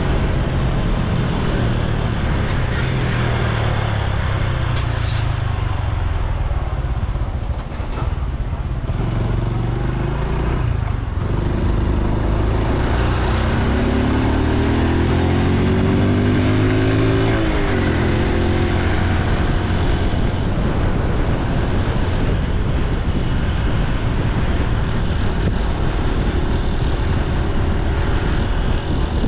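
Honda Super Cub C125's single-cylinder four-stroke engine and exhaust running steadily while riding. About halfway through, the engine note climbs for a few seconds as it speeds up, then drops suddenly.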